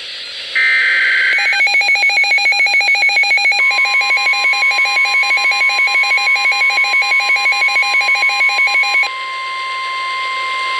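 Weather radio alert for a severe thunderstorm warning. It opens with a brief warbling burst of digital data tones (the end of the SAME alert header). Then come rapid electronic alarm beeps from the receiver, joined about three and a half seconds in by the steady 1050 Hz NOAA Weather Radio warning alarm tone; the beeping stops about nine seconds in while the steady tone holds.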